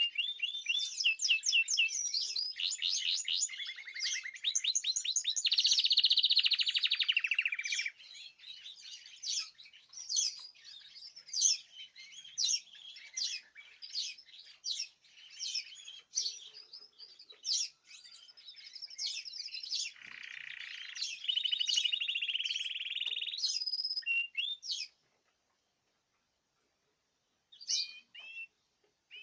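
Several caged songbirds singing together: dense, fast trills and warbling at first, then scattered sharp chirps, a second run of trilled song later on, and a pause of about two seconds near the end before the chirping resumes.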